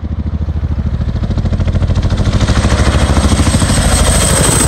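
Two Boeing Chinook tandem-rotor helicopters flying low past: a fast, even rotor beat growing louder as they close in, with a high turbine whine that strengthens near the end.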